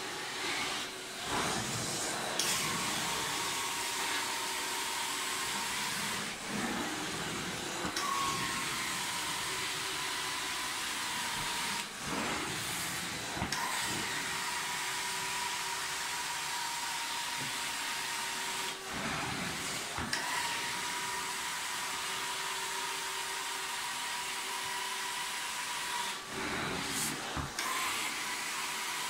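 Carpet-extraction floor wand drawing suction across the carpet during hot-water extraction: a steady hiss with a thin whistle tone over it. The sound breaks and shifts briefly every several seconds as the wand is worked in strokes.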